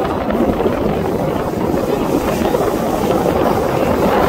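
Steady rumbling roar of the Frecce Tricolori's distant Aermacchi MB-339 jet formation passing overhead, mixed with wind buffeting the microphone.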